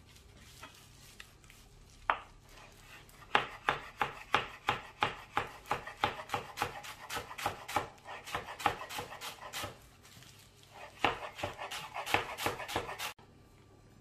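Chef's knife chopping flat-leaf parsley on a plastic cutting board: a single chop about two seconds in, then a quick, even run of chops for about six seconds, a short pause, and a second short run near the end.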